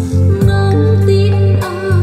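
Music played back through a pair of Sonic AS-447A floor speakers with 40 cm woofers: a slow piece with sustained bass notes under a gliding melody line.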